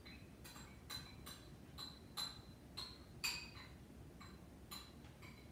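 A series of faint, light clicks with a slight ringing tone, about eleven at uneven intervals of roughly two a second; the loudest comes a little past three seconds in.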